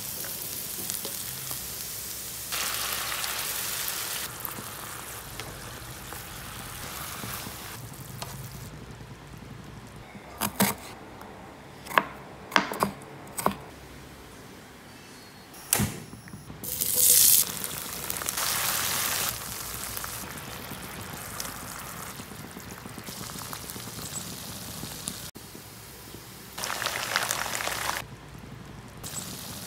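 Food frying in hot oil in a pan, first sliced onions, garlic and red chillies and later soy-glazed chicken pieces, sizzling in loud stretches that come and go. A few sharp clicks and knocks come through in the middle.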